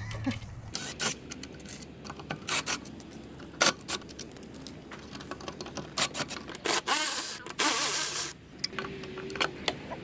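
Irregular scraping, rubbing and clicking of a headlight assembly being worked loose by hand from a bus's metal front panel, with a longer scrape about six to eight seconds in.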